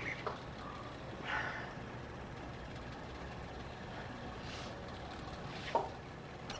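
A woman's breaths, a few short audible exhales, over a low steady hum, with one brief sharp sound near the end.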